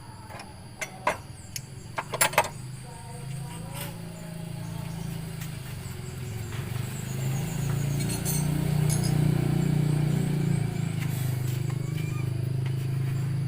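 A few sharp metal clicks and clinks of tools on the engine in the first couple of seconds, as the drive belt is taken off. Then a steady low hum builds and is loudest in the middle.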